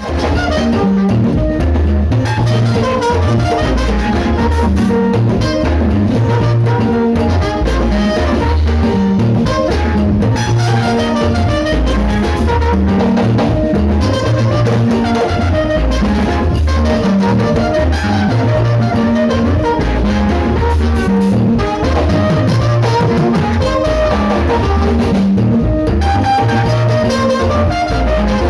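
Music played loud through a sound system for a sound check, with a heavy pulsing bass line and drums.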